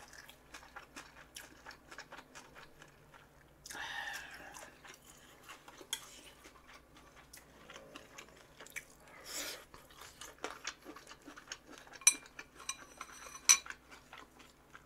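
Close-miked chewing of food, many small irregular mouth clicks, with two sharp clinks of cutlery against a dish near the end.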